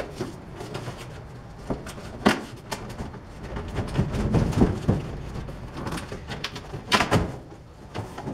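Cardboard bicycle shipping box being opened by hand: the glued top flaps are pulled loose and folded back, with sharp knocks about two seconds in and again near seven seconds and cardboard rubbing and scraping in between. The flaps are held with hard industrial glue.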